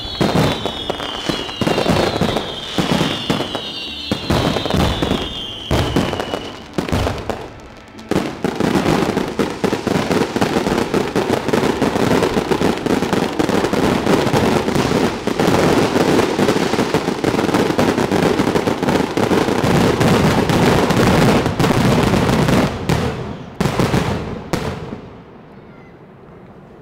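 Aerial fireworks display's finale: rapid bursts and crackling, with several whistles falling in pitch in the first few seconds. After a brief lull about eight seconds in, a dense continuous barrage of crackling bursts follows. Near the end it stops, with a few last bangs.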